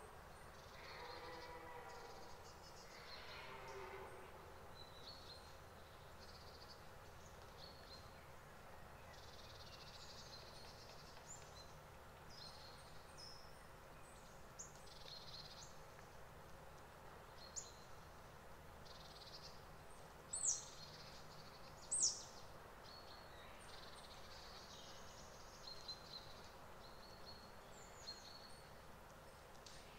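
Faint birdsong of small birds: scattered short high chirps, with two louder sharp falling calls about twenty and twenty-two seconds in. In the first few seconds a red deer stag's roar fades out in the distance.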